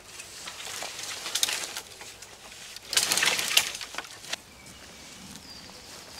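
A freshly cut hazel pole being pulled down through a coppice stool, its leaves and twigs rustling and scraping against the branches in two bursts, the second louder. Faint bird calls near the end.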